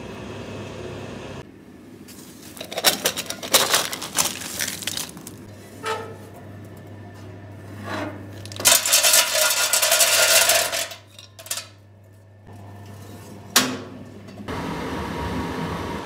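Wood pellets clattering against the sheet-metal hopper of a pellet heating stove in several bursts, the longest and densest about two seconds near the middle, with one sharp metallic click a couple of seconds before the end. The stove's fan then starts running steadily.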